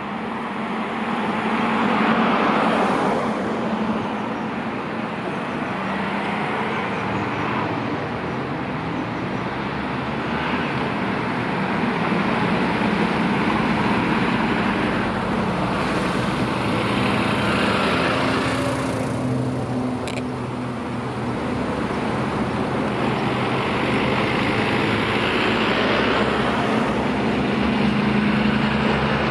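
A convoy of fire engines and fire brigade vans driving past one after another, engines and tyres rising and falling as each vehicle goes by.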